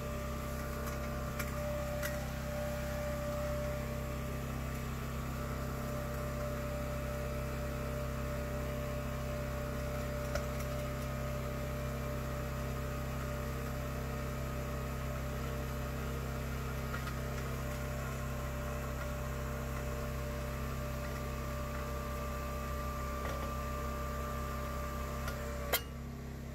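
Hydraulic pump steadily humming as it powers a push-pier ram, driving a steel pier section down into the soil beneath a house foundation. A single click sounds near the end.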